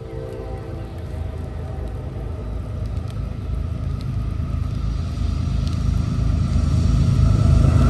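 Approaching freight train: diesel locomotive rumble growing steadily louder as it nears.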